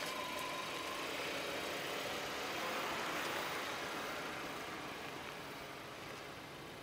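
An Audi car's engine running at low speed as the car rolls slowly forward, a steady sound that gradually fades over the second half.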